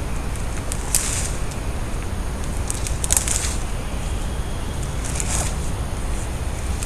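Crunching and crackling of dry nest vegetation in three short bursts, about a second in, around three seconds and just past five seconds, as an alligator works its snout into its nest mound at hatching time. A steady low rumbling noise lies underneath.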